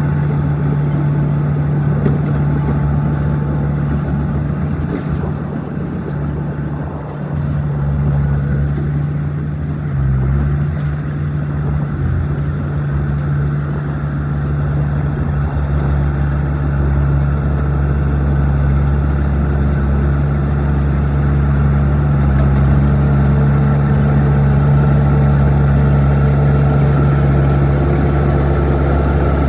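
Old bulldozer's diesel engine running steadily with a low drone. The drone dips briefly about a quarter of the way in and grows stronger from about halfway on.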